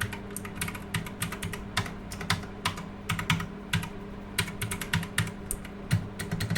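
Typing on an EvoFox Katana X2 mechanical keyboard with clicky blue switches: a quick, uneven run of sharp key clicks.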